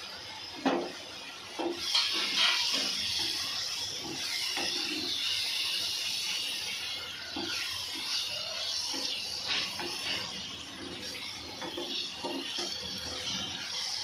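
Prawns cooking in a pan of masala gravy, sizzling and bubbling, while a wooden spatula stirs them and clatters against the pan. A sharp knock comes just under a second in, and the sizzle grows loud about two seconds in.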